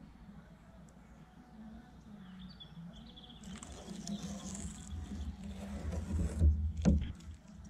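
Hands rustling and scraping at adhesive tape strips on a car's trunk lid, then two sharp knocks about half a second apart near the end.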